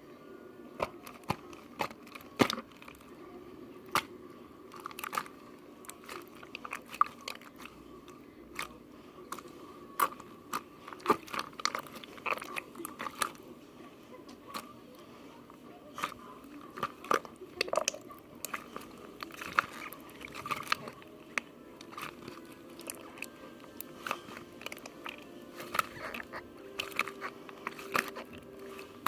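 Irregular crisp crunches and clicks, anywhere from one to several a second, over a faint steady hum.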